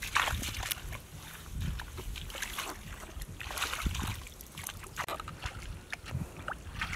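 Bare feet splashing through shallow muddy water: a run of irregular splashes and sloshes, with water sloshing as hands work in the pool near the end.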